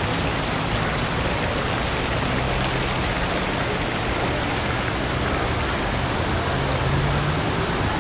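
Fountain jets splashing into their pool: a steady rush of falling water.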